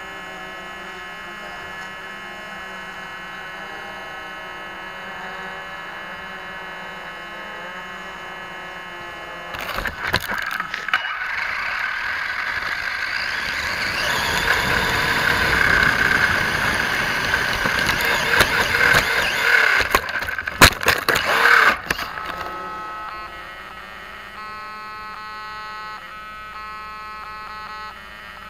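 Vaterra Twin Hammers RC rock racer driving over dirt: its electric motor whines and the tires and chassis rattle over gravel, starting about ten seconds in and stopping about twelve seconds later, with sharp knocks near the start and end of the run. Before and after the run there is a steady electronic hum.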